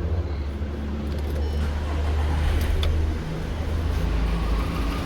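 VW Polo Vivo's petrol engine idling steadily, running smoothly after its carbon-fouled cylinder 2 spark plug was sanded clean and refitted, which had been misfiring before.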